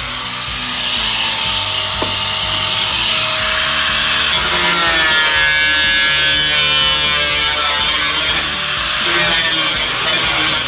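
Angle grinder cutting a corrugated steel roofing panel: a steady high whine and hiss of the disc in the metal, the pitch wavering as the cut goes on and dipping briefly about eight seconds in. Background music plays under it.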